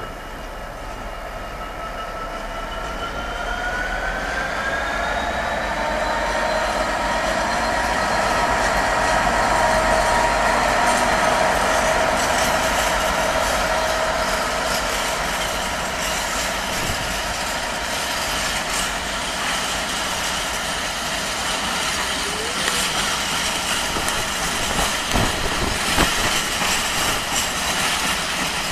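Diesel train accelerating. Its engine note rises over the first several seconds and then holds steady, growing louder until about halfway and then easing off a little. Near the end, wheels click over rail joints.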